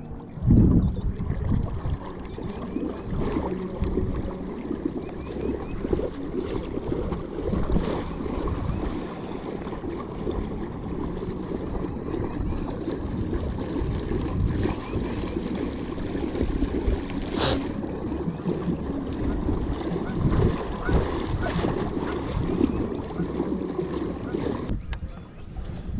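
Water sloshing against a kayak with wind noise on the microphone, a continuous low rumble that rises and falls. There is a single sharp click about seventeen seconds in, and the rumble drops off suddenly near the end.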